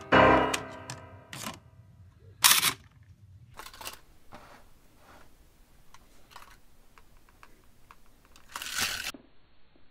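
A piano tune ends in the first second or so. Then hard plastic toy track pieces click and knock as they are handled and fitted together, with two short louder scraping noises, one about two and a half seconds in and one near the end.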